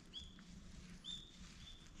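A bird calling three times: short, high, clear whistled notes, each briefly held, over faint background.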